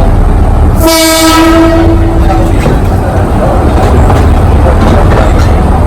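Alishan Forest Railway train running with a loud, steady rumble. About a second in, its horn sounds one blast that lasts about a second and a half.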